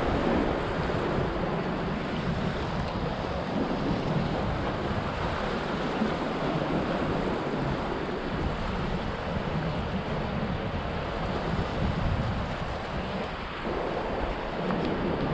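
Ocean surf washing against the boulders of a rock jetty, with wind buffeting the microphone.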